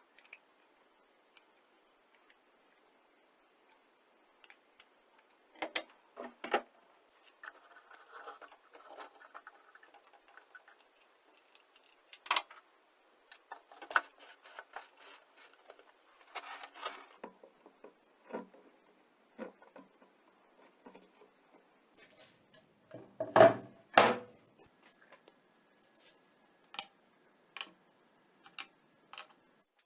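Scattered clicks, taps and knocks of hand work with small parts and tools, with some scraping between them and two louder knocks close together late on.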